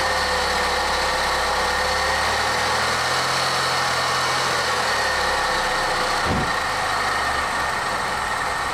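Mazda Miata NA four-cylinder engine running just after it first starts, unable to hold a steady idle, which the owners put down to a vacuum leak. Its low note holds for about five seconds and then shifts, with a brief thump about six seconds in.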